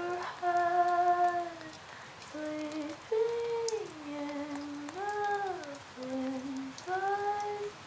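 A woman humming a slow, wordless melody with no accompaniment, holding each note and gliding between them. The voice sounds distant, as if from another room, with faint scattered rain ticks behind it.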